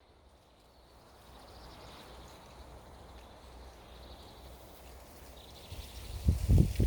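Winter wind in a forest, with faint high bird calls. Near the end, gusts buffet the microphone with loud low rumbles.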